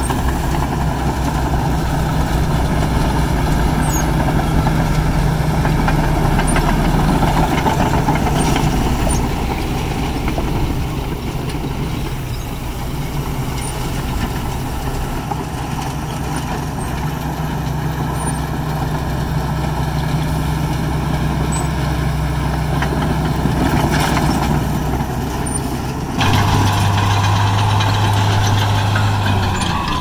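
Diesel engine of heavy earthmoving equipment running steadily under work, easing off a little midway, then stepping up suddenly to a louder, different engine note a few seconds before the end.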